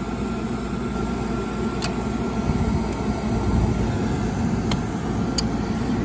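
Gas furnace firing: burners lit and the draft inducer running, a steady rumbling hum with a faint high whine and a few light ticks. The furnace lights and runs, with the pressure switch under suspicion for its earlier lockouts.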